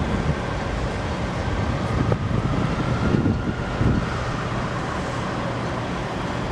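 City street traffic noise with wind buffeting the microphone: a steady rumble of vehicles, a couple of low gusts about three and four seconds in, and a faint whine rising and falling as a vehicle passes.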